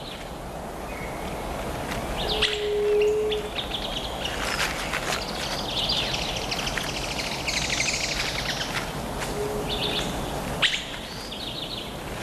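Birds chirping in short calls, with a fast, high trill through the middle, over a steady background hiss.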